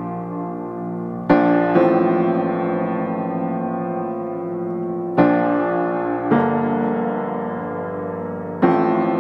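Slow, gentle piano music: sustained chords struck every couple of seconds and left to ring out.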